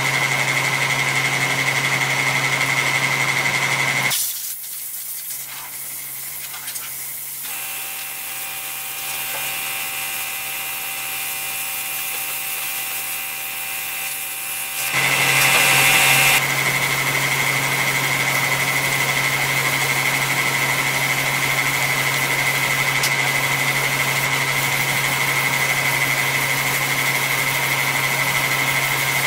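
Dual-action (DA) sander running steadily on a car hood's paint and body filler, with a steady whine over a low hum. About four seconds in the sound drops to a quieter, different hum for some ten seconds, then the full sander sound returns.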